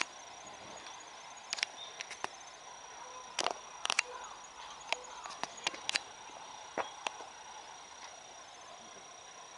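Quiet outdoor background noise with a faint steady high whine and about ten sharp clicks and taps scattered through it, the loudest about three and a half to four seconds in.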